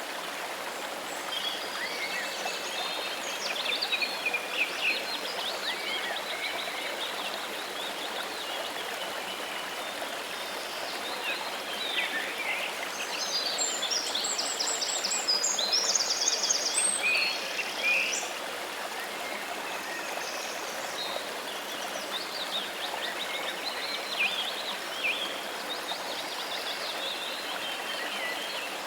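Steady rush of a waterfall's running water, with birds singing and calling over it. A fast trilling phrase comes about halfway through.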